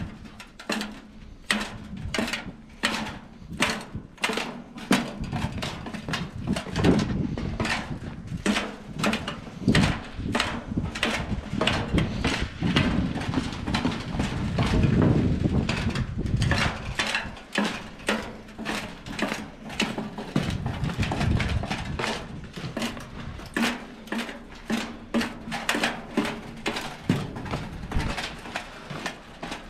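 Boots descending steep steel fire-tower stairs: steady footfalls knocking on the wet, icy metal treads, about two steps a second.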